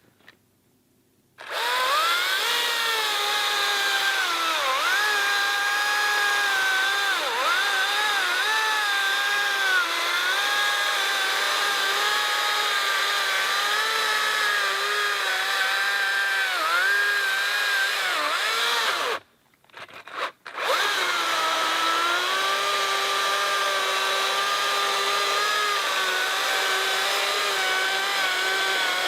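Makita XCU04 36V brushless cordless chainsaw cutting through a ponderosa pine log, its motor whine dipping and recovering as the chain bites under load. It starts about a second and a half in, cuts off suddenly about two-thirds of the way through with a brief blip, then starts again and keeps cutting.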